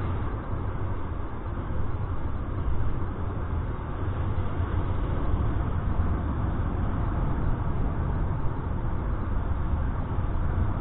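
Wind buffeting the microphone of a paraglider pilot's body-mounted camera in flight: a steady low rumble with a rushing hiss over it.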